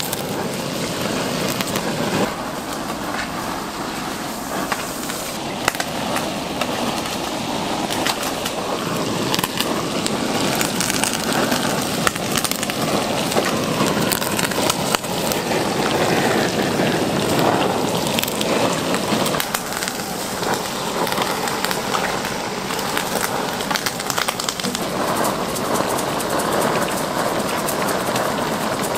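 Pork offal sizzling and crackling on a grill, a steady hiss with scattered sharp pops and clicks.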